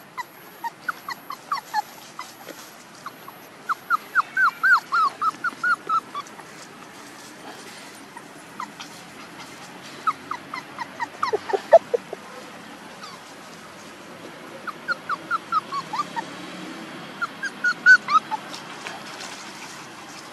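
Month-old puppy whimpering: quick runs of short, high, falling whines and yips, with pauses of a few seconds between the runs.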